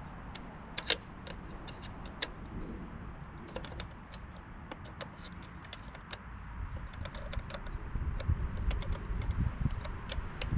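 Scattered light metallic clicks and clinks of hand tools and fasteners as the magneto is unbolted from an Allis-Chalmers B tractor engine, with a low rumble of handling that builds near the end.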